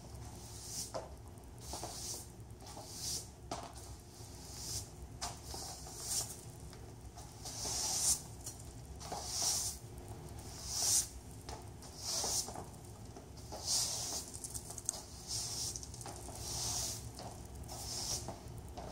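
Angle broom's plastic bristles swishing across a laminate floor in repeated strokes, about one every second and a half, with scattered clicks of stiletto heels on the floor between them.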